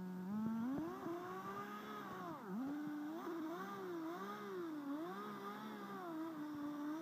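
Redcat Tornado S30's 30cc two-stroke engine revving up and down as the buggy is driven, its pitch rising and falling several times as the throttle is worked, with a sharp drop and climb again about two and a half seconds in.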